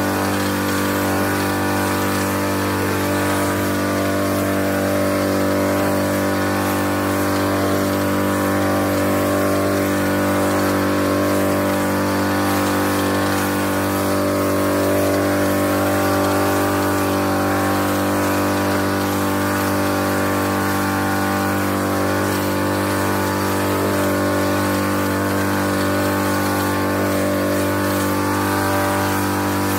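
Petrol-engine power sprayer running at a steady, unchanging pitch, its pump driving fungicide mist out of a spray wand with a hiss over the engine note.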